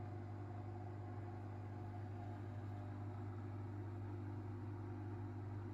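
Washing machine running in its spin cycle after a repair to its PCB module, a steady, even hum with no change in pitch.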